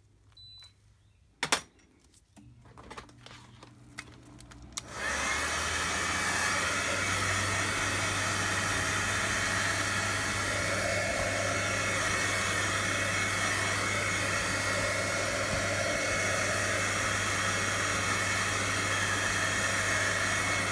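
A few clicks and a short electronic beep, then about five seconds in a handheld blow dryer switches on and runs steadily.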